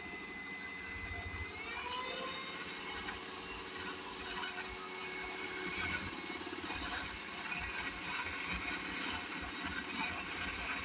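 Small DIY micro lathe running on its 24-volt DC scooter-type motor with a steady whine. About two seconds in the whine rises in pitch as the motor speeds up. From about four seconds, irregular rough crackling sounds over it.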